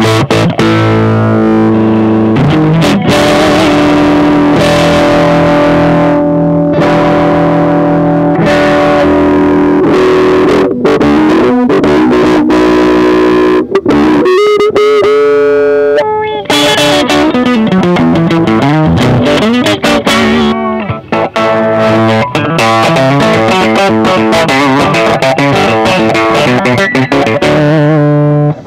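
Electric guitar with Dialtone active pickups played through an Orange Dual Terror valve amp, picking bluesy single-note lines and chords. About halfway through, a held note wavers with wide vibrato.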